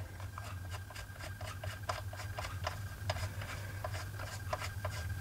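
Spark plug being unscrewed by hand from a 1/5-scale petrol RC car's two-stroke engine, giving faint light clicks about three times a second as it turns.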